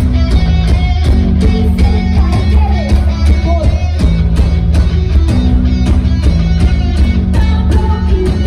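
Rock band playing live and loud: electric guitar, bass guitar and drums together in an instrumental passage, the drums keeping a steady beat under held bass notes.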